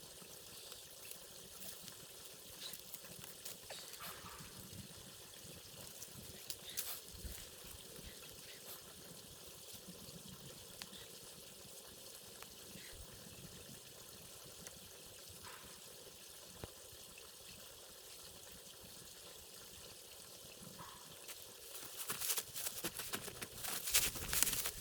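Faint steady trickling of water with a few light knocks. From about three seconds before the end, louder rustling and crunching.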